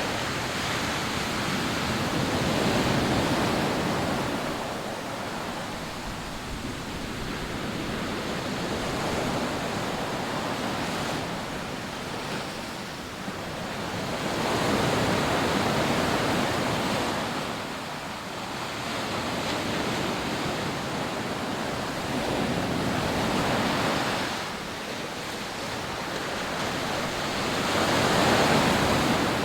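Rough surf breaking on a sandy beach: a continuous wash of waves that swells to a louder breaker about every five to six seconds and eases off between them.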